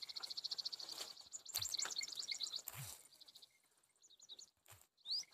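Small birds chirping: fast high trills and short rising calls, with a few soft knocks in between.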